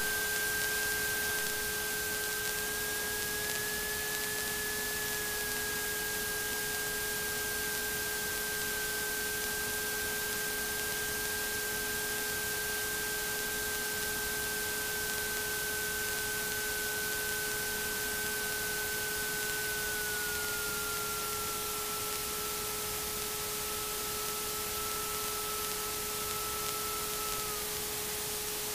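Steady hiss with a few faint steady whining tones, one of them sliding slowly lower about two-thirds of the way through: electrical noise on a light aircraft's headset intercom audio with no one talking.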